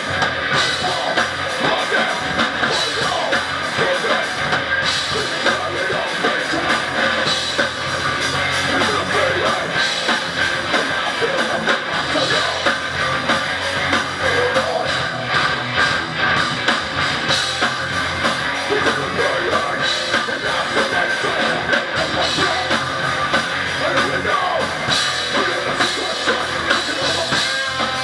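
Heavy metal band playing live at full volume: two electric guitars, a bass guitar and a drum kit, without a break.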